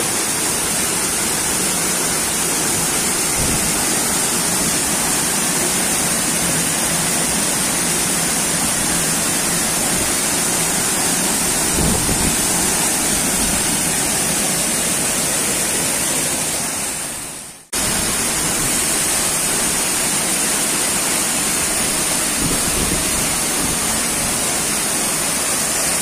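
Waterfall plunging down a rock face into a pool, a steady loud rushing of falling water. About two-thirds of the way through, the sound fades down briefly and cuts back in at full level.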